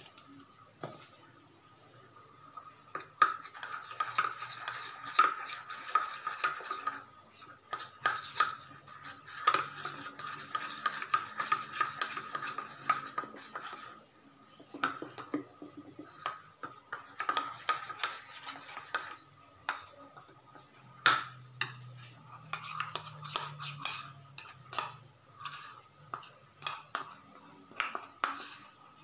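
Metal spoon stirring and scraping thick red paste around a plastic bowl: rapid clinks and scrapes that start about three seconds in and go on with a few brief pauses.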